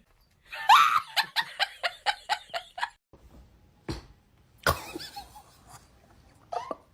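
A person laughing in a quick run of about a dozen short "ha" bursts lasting a couple of seconds, followed by two sharp knocks about a second apart.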